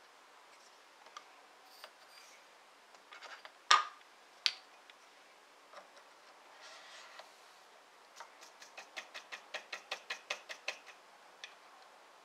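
Lee powder dispenser worked by hand with a few scattered clicks and two sharper clicks about four seconds in. From about eight seconds a quick, even run of light taps, about six a second, settles the powder so each thrown charge is consistent.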